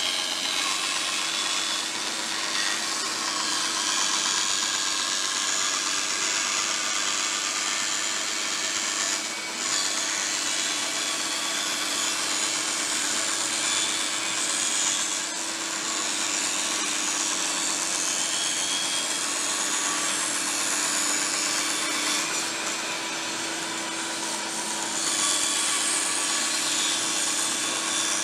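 Bandsaw cutting a circle out of plywood: a steady motor hum under the hiss of the blade through the wood.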